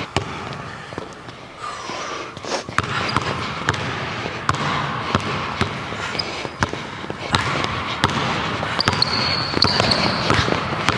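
Basketball dribbled on a hardwood gym floor, one bounce about every half second, each ringing in the hall. A brief high sneaker squeak comes near the end.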